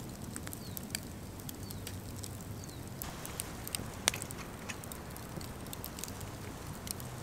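Wood campfire of burning logs crackling, with irregular sharp pops, the loudest about four seconds in.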